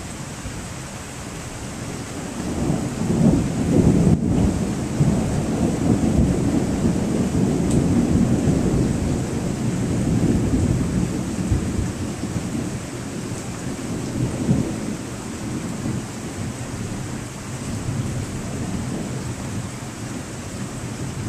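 Thunder rolling through a rainstorm: a deep rumble swells about two and a half seconds in, is loudest around four seconds, then rolls on in smaller surges and slowly eases off, over a steady hiss of rain.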